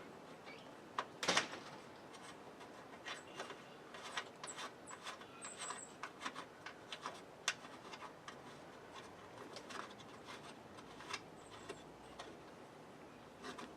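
Scattered small clicks and taps as a headlight switch is worked into its opening in a truck dashboard, with a sharper knock a little over a second in.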